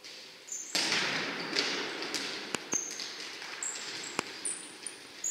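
Several sharp knocks of a futsal ball being kicked and bouncing on the court. Short high squeaks of players' shoes on the hall floor come between them, over a wash of noise that starts suddenly about a second in.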